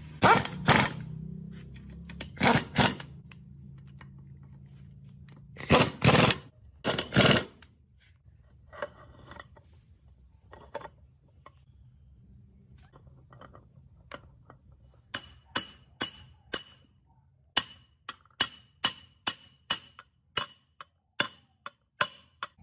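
Steel parts of a gear speed reducer being fitted into its metal housing: several loud metal knocks in the first few seconds, then, after a quieter stretch, a run of short ringing metal taps at about two a second.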